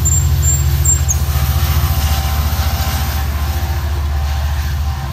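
Commuter train's diesel engine running: a deep, steady rumble with a fine, rapid pulse, easing slightly toward the end.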